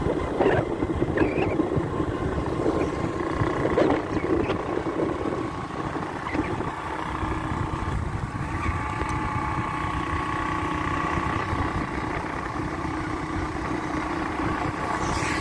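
Motorcycle running along a road as it is ridden, with a steady low rumble throughout and a faint steady whine that grows stronger about halfway through.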